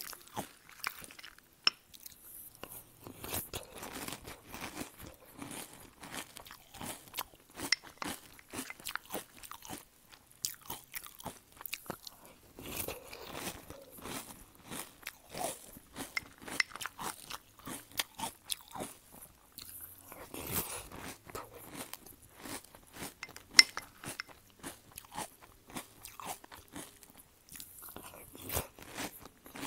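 Close-miked crunching and chewing of crunchy cereal squares in milk, eaten off a wooden spoon: a dense, irregular run of crisp crunches.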